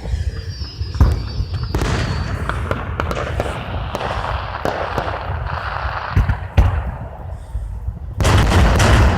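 Fireworks going off: separate bangs about a second in and then scattered through, over a steady crackling haze, and a louder, denser barrage starting near the end.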